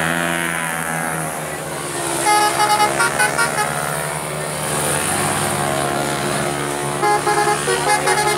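Vehicle engines running, with a horn sounded in quick repeated toots in two spells, about two seconds in and again about seven seconds in.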